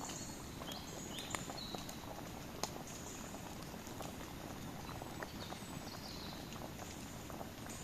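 Wood campfire crackling, with irregular sharp snaps and pops over a steady hiss of burning. A few brief high whistling notes sound here and there.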